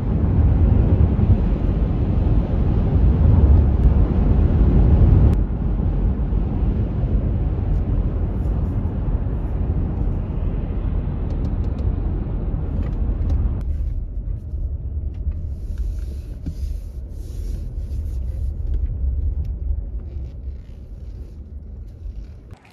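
Road and tyre noise inside a moving car's cabin, a steady low rumble. It drops sharply in level about five seconds in and again about fourteen seconds in, fading further near the end.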